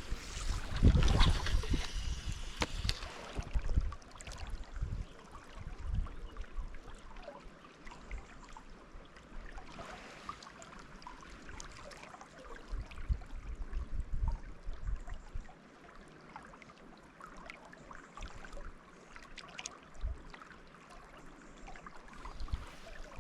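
River water trickling and lapping, with wind buffeting the microphone in uneven gusts, hardest in the first few seconds.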